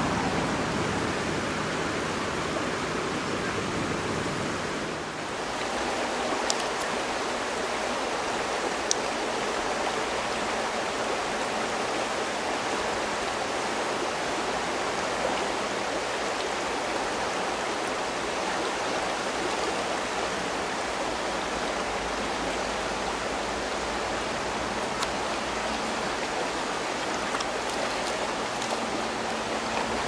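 Steady rush of a fast, shallow river running over stones and around a wading angler's legs. The sound dips briefly about five seconds in, and a few faint ticks stand out from it.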